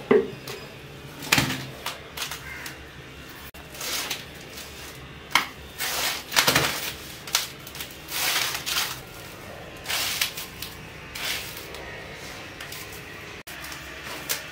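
Hands mixing and kneading wet flour into dough in a steel bowl: irregular bursts of rubbing, squishing and scraping against the metal.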